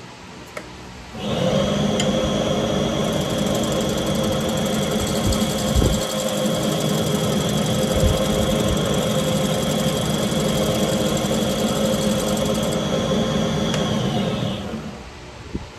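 Wood lathe starting about a second in and running with a steady motor hum and high whine, while a bowl gouge cuts the spinning Goncalo Alves bowl, throwing shavings. Near the end the lathe is switched off and the whine sinks away.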